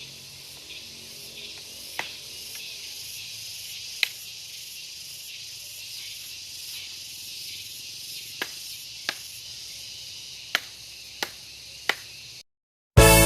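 A steady high-pitched hiss of insects, with seven sharp clicks or snaps spread through it; the sound cuts off shortly before the end.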